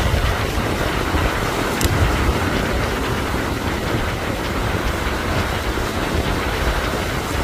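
Surf breaking and washing ashore, with wind buffeting the microphone in a steady, uneven low rumble.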